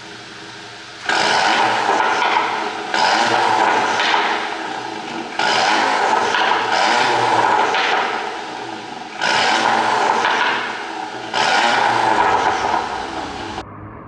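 2015 VW Golf 7 GTI's turbocharged 2.0 TSI four-cylinder, ECU-tuned for overrun pops, blipped five times from idle. Each rev comes in suddenly and trails off with exhaust crackle as the throttle closes. The sound cuts off abruptly near the end.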